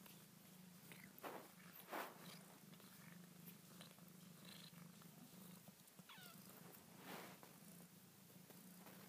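Faint, steady purring from a litter of young kittens and their cat, with a few soft rustles.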